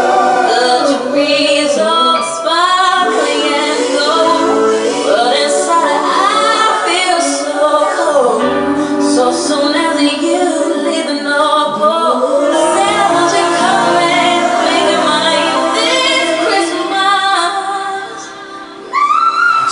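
Studio playback of a female pop singer's newly recorded Christmas vocals, a lead voice with layered harmonies and little bass underneath. It drops away briefly near the end.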